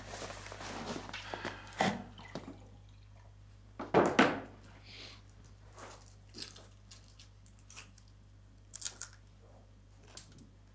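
Quiet handling sounds: a jacket rustling, a soft thump about four seconds in, then faint scattered crinkles and clicks of a chocolate wrapper being unwrapped.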